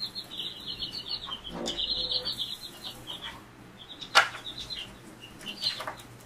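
Young chicks peeping in quick runs of short, high chirps, with a sharp tap about four seconds in.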